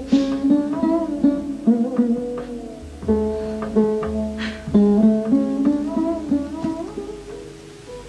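Background music: a plucked string instrument playing a slow, melancholy melody of single notes, some sliding into pitch, over a sustained low drone.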